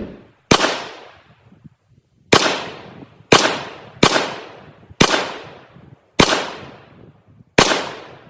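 AR-15 rifle fired seven times in slow semi-automatic fire, about one shot a second at uneven spacing. Each shot has a short echoing tail.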